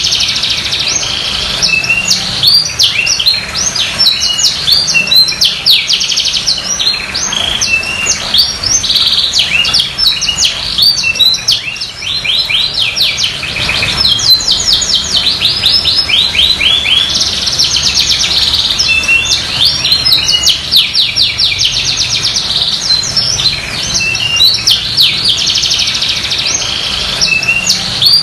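Domestic canary singing a long, unbroken song of rapid, high trills. One trill type runs into the next every second or two.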